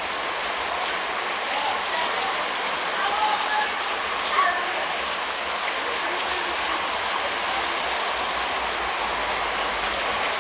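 Heavy rain falling steadily: a dense, even hiss of water, with countless single drops striking through it.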